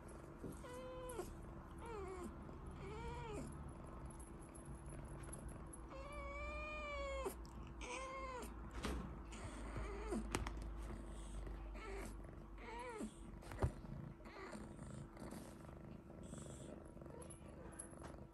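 British Longhair kitten meowing again and again: about eight short, arched meows rising and falling in pitch, with one long drawn-out meow about six seconds in. A single sharp tap about two-thirds of the way through.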